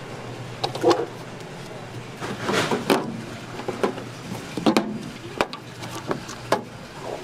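A series of short knocks and clatters about a second apart from handling kitchen gear: a stainless steel tray, then a metal oil tin and its plastic pour spout.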